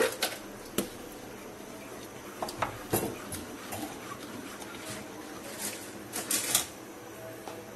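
A spoon knocking and scraping against a bowl and a metal cooking pot as sliced onions are scraped in and stirred into the curry: a few sharp clinks, the loudest about three seconds in and a cluster of them near the end.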